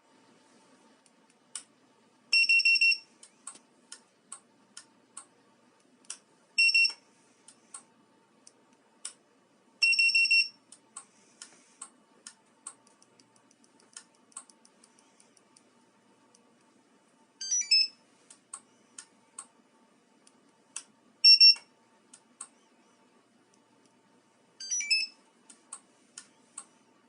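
Car alarm key fob's buzzer sounding short high beeps and a few brief warbling chirp melodies, with sharp clicks in between.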